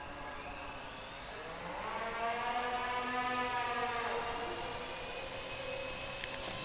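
Small electric motor and propeller of an indoor RC foam plane whining in flight, the pitch and loudness swelling upward about two seconds in and dropping back near four seconds as the throttle changes.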